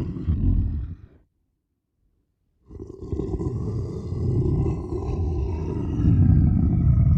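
Kothoga creature sound effect: a deep, rough monster growl performed by a human voice. It ends about a second in; after a short silence a second, longer growl starts and grows louder toward the end.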